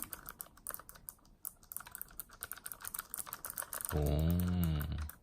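Fast typing on a thin portable mechanical keyboard with clicky blue switches: a quick, uneven run of key clicks. About four seconds in, a low voice hums for about a second over the typing.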